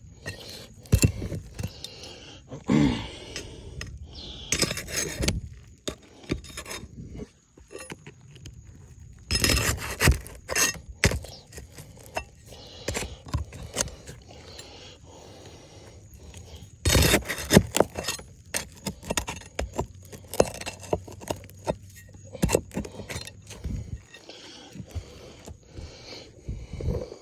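Small hard objects being handled: irregular clicks, clinks and scraping, in several louder clusters.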